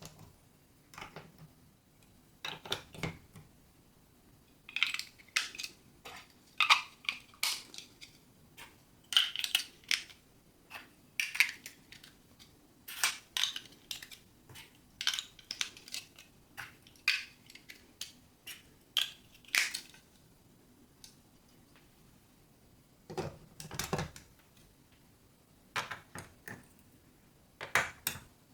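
Marbles clacking and rattling along a building-block marble run: a long run of sharp clicks and knocks, some ringing briefly, with a pause of a few seconds near the end before a few more clatters.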